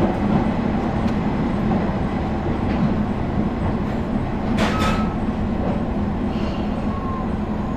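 JR Shikoku 2000 series diesel tilting train running, heard from inside the passenger cabin: a steady engine drone and rail running noise. A little past halfway come a couple of sharp clacks as the wheels cross the points into a passing loop, and near the end a faint brief wheel squeal.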